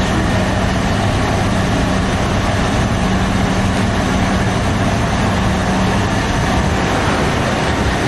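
Large bakery oven running: a loud, steady mechanical hum under an even rushing noise.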